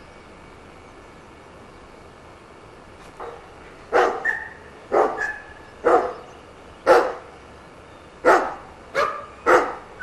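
A dog barking: single sharp barks about once a second, starting a few seconds in and coming a little faster near the end.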